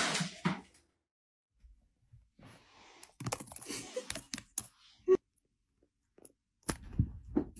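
A handful of sharp clicks with soft rustling between them, set apart by silent gaps, and a couple of dull knocks near the end.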